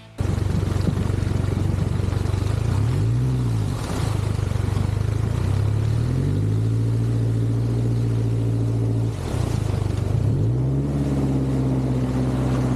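Outboard jet-boat motor running under way, its pitch rising and falling with the throttle: a brief rev about three seconds in, a climb to a steady higher pitch from about six seconds, a drop near nine seconds and another climb. Water rushes steadily under the hull throughout.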